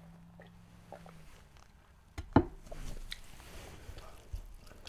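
Eating and drinking noises at a table: quiet at first, then a sharp tableware clack about two seconds in, followed by small clinks and mouth sounds as fried rice is eaten with a fork.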